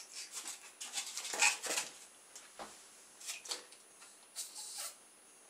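Scattered short rubbing and handling noises as a small polystyrene boat with an inflated rubber balloon is set on the bathwater and held by the balloon's neck before launch.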